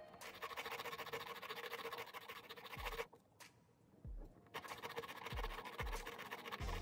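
Metal wheels of an HO-scale model train wheelset scrubbed back and forth on an abrasive Peco track-cleaning rubber block, rubbing the dirt off the treads: a dry, rapid scratching. It stops for about a second and a half midway, then starts again.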